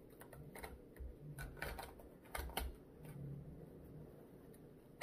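Faint handling noises from a new running shoe being squeezed and worked in the hands: scattered clicks and soft knocks over the first few seconds, then a sharper click at the very end.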